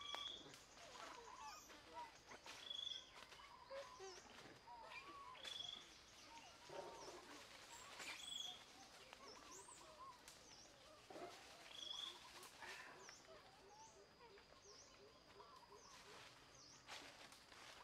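Faint outdoor ambience of birds calling: a short high note repeating every two seconds or so among softer chirps, over a thin steady high tone.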